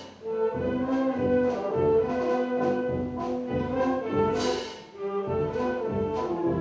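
Youth concert band playing held brass and woodwind chords over regular percussion beats, with a sharp hit about four seconds in and brief dips between phrases.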